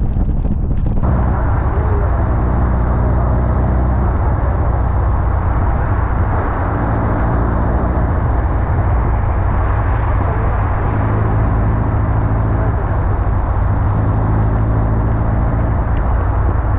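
Open-cockpit Super Seven sports car driving at a steady speed: engine running evenly under a heavy rush of wind and road noise. The sound changes abruptly about a second in, then stays steady.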